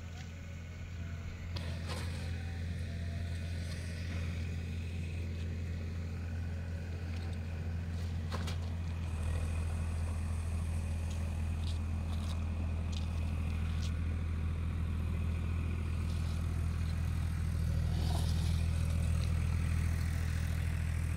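An engine running steadily at idle, a low even drone whose note shifts slightly about nine seconds in, with a few faint scrapes.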